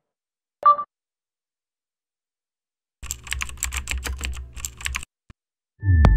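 Computer keyboard typing sound effect: a rapid run of key clicks for about two seconds. Near the end a deep hit with ringing chime notes opens an electronic jingle.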